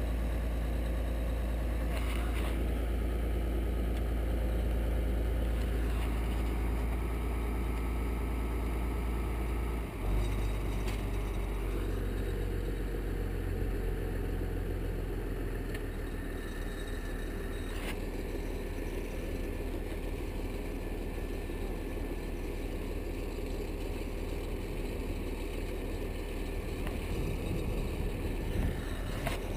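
Farm tractor engine running steadily with a low rumble; its note shifts about ten seconds in.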